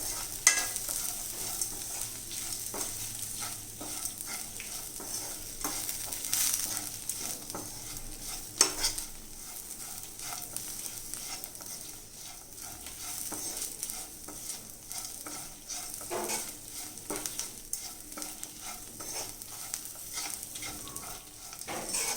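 Cluster beans sizzling in a frying pan while a spatula stirs and scrapes them through the spice powders. There is a steady hiss of frying, with frequent small scrapes and a few louder ones scattered throughout.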